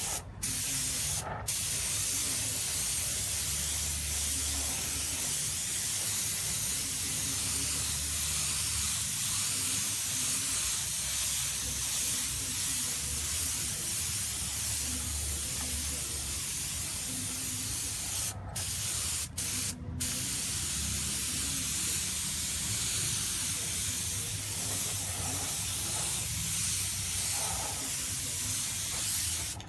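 Air spray gun hissing steadily as it sprays hyper chrome paint onto a motorcycle body panel, the spray cutting off for a moment a few times: twice near the start and three times about two-thirds through.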